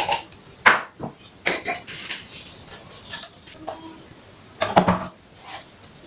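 Kitchen clatter of a cooking pot and seasoning containers being handled on a countertop: a run of short knocks and clinks, loudest near the start and again about five seconds in.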